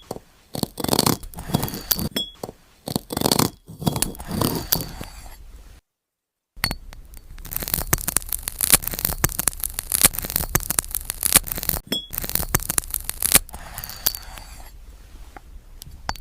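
ASMR sound effect of a knife cutting a glass banana: crisp crunching and scraping with short glassy clinks, in clusters of strokes. The sound cuts out completely for under a second about six seconds in, then resumes as denser, continuous crunching.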